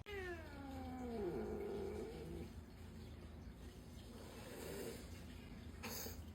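A cat's quiet, drawn-out low meow that falls steadily in pitch over about two seconds. Two short scuffing noises follow near the end.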